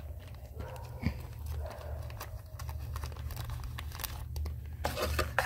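Small clear plastic bag crinkling as it is handled and folded, in irregular crackles, with a louder crackle at the very end.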